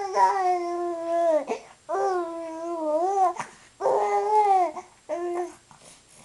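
A baby babbling: four drawn-out, high-pitched cooing vocal sounds with short pauses between them, the last one brief.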